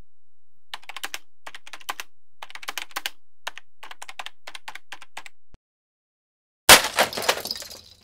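Typing on a computer keyboard: quick runs of key clicks with short pauses, stopping about five seconds in. After a second of silence comes a much louder, dense clatter of keys struck hard all at once, which dies away over about a second.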